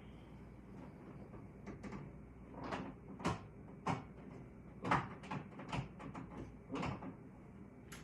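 Irregular knocks and clunks of parts being handled on a Skil table saw, about a dozen in a row, the loudest a little past the middle. The saw's rack-and-pinion blade mechanism is jammed and being worked on by hand to free it.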